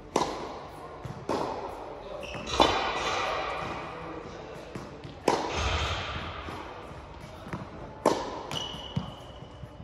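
Tennis balls being struck by rackets and bouncing on the court during a rally: sharp pops about every one to three seconds, each echoing in a large indoor hall.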